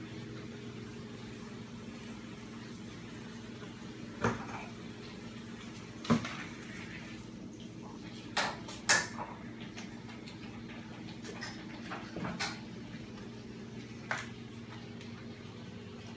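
A kitten at play with a cardboard box and toy mice on a hard floor: a handful of short, sharp knocks and clatters, the loudest a pair a little past halfway. A steady low hum runs underneath.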